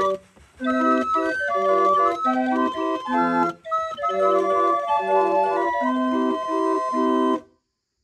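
Hand-cranked 23-key G. Molinari & Sons street organ playing a tune from its pinned barrel, a melody over lower accompanying notes. It breaks off briefly just after the start, picks up again, and stops suddenly about seven and a half seconds in.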